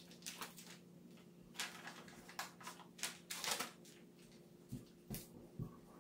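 Paper and adhesive tape strips rustling and crinkling in short scratchy spells as they are handled and pressed onto a cardboard box, with a few soft thumps near the end, over a faint steady hum.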